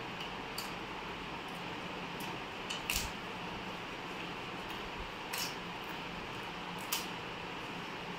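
Eating with the hands: a few short, sharp crisp snaps a second or two apart as food is torn and chewed, the loudest about three seconds in, over a steady background hiss.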